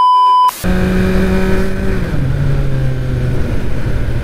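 A short, high censor beep lasting about half a second, then a Kawasaki Z900's inline-four engine running on its stock exhaust as the bike is ridden, its note dropping in two steps.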